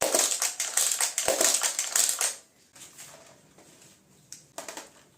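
Plastic parts of a Kamen Rider Revice Driver toy belt being moved and handled. It clatters with many sharp clicks for about two seconds, then gives a few lighter clicks near the end.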